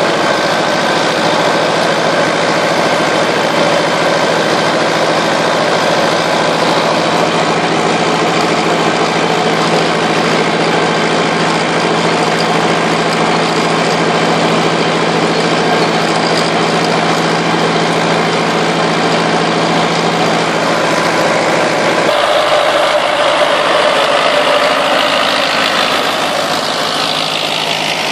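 Lamborghini tractor's diesel engine running steadily under load while it pulls a mounted plough through the soil. Its note changes abruptly near the end.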